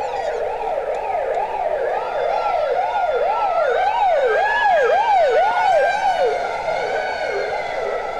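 Ambulance and police sirens sounding together: one siren sweeps quickly up and down about twice a second, and a second siren wails more slowly above it. They grow louder toward the middle and then ease off a little.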